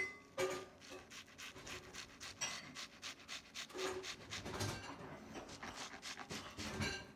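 Fillet knife sawing back and forth between a walleye fillet's skin and flesh, the blade scraping along the skin on the cutting board in a quick, uneven series of short strokes, several a second.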